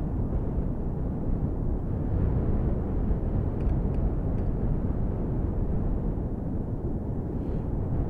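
Gale-force wind buffeting a microphone muffled under a coat: a steady low rumble with no break.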